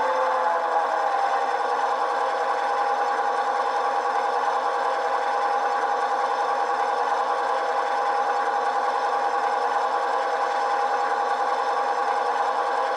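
Loksound v5 sound decoder playing a GP9 diesel locomotive engine through small sugar cube speakers in an HO scale model, stepping up a notch with a rise in pitch right at the start, then running steady at the higher throttle notch.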